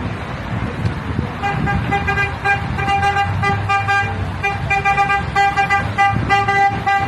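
Fire engine horn sounding in rapid short blasts, one steady pitch pulsing several times a second, over the truck's engine rumble.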